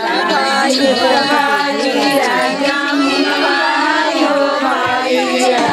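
A group of voices singing together, several melodic lines overlapping and holding notes.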